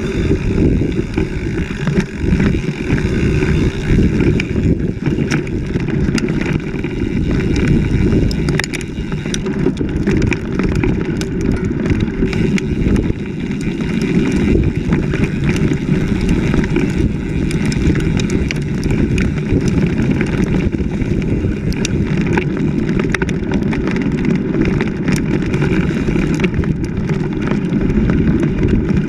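Mountain bike descending a rough dirt trail: a steady low rumble of tyres and wind on the microphone, with frequent clicks and knocks as the bike rattles over roots and stones.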